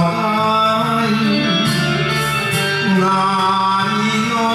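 A man singing an enka song in long, held notes over a karaoke backing track with guitar.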